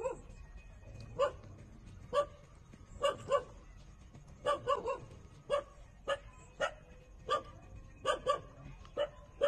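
Young puppy, about four weeks old, giving short squeaky yips, about fifteen of them at irregular spacing, some in quick pairs.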